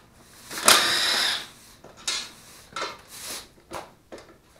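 A cordless drill-driver runs in one short burst about a second in, backing a bolt out of the side cover of a Duromax 440cc single-cylinder engine. Several light metallic clinks and knocks follow as the bolt and tool are handled.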